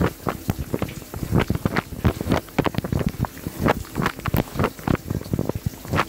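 Wash water from the spray arms of a running Miele G 2225 SCi dishwasher splashing against the rack, dishes and camera, heard from inside the wash cabinet. It comes as irregular splashes and hits, several a second.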